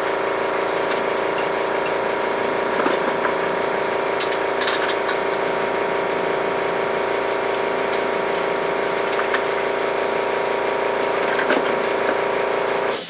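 Electric motor of a woodworking machine running steadily with a constant hum, with scattered light ticks and clicks from the work, then switched off just before the end.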